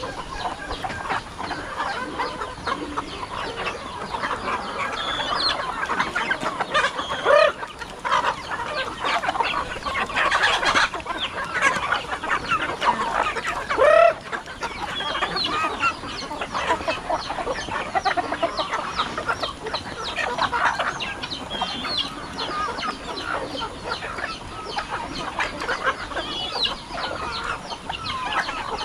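A large flock of chickens clucking and squawking all at once while being fed. Two louder calls stand out about seven and fourteen seconds in.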